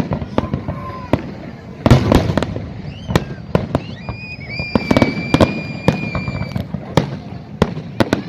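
Fireworks display: many sharp bangs of bursting shells, with a dense volley about two seconds in. A long, steady high whistle sounds through the middle.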